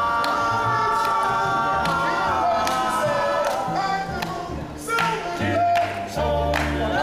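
A vocal group singing a cappella in close harmony, with several voices holding chords together over a low bass line.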